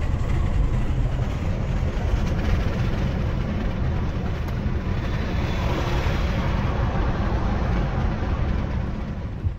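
Steady low rumble with a rush of air, from a car driving with its side window open alongside a Union Pacific diesel locomotive and track inspection car. It swells a little midway and eases off near the end.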